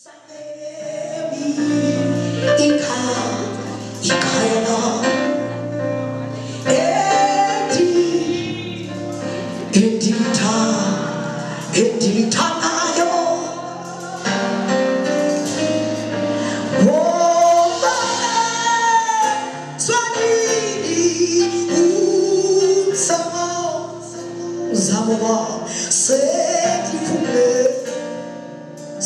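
Live gospel singing by male and female voices over a band, with held low notes underneath and sharp cymbal-like strikes throughout.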